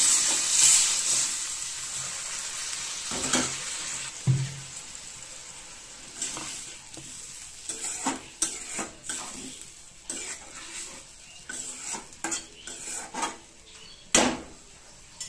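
Sizzling in a metal kadai as water poured onto frying spice paste and taro leaves hisses and dies down over the first few seconds. Then a metal spatula stirs and scrapes against the pan in short separate strokes, the loudest near the end.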